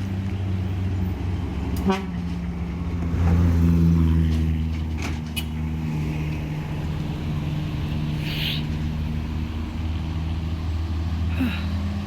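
Heavy truck engine running with a steady low hum, swelling louder for a moment about three seconds in, with a few faint clicks along the way.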